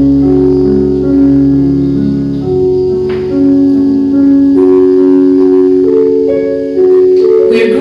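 Solo piano playing sustained notes that change every second or so: an accompaniment interlude between sung lines.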